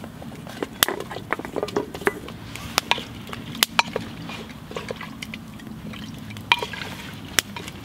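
Chopped vegetables and a utensil knocking in the metal pot of a Kazan pressure cooker as the vegetables go in: a dozen or so irregular sharp clicks and knocks.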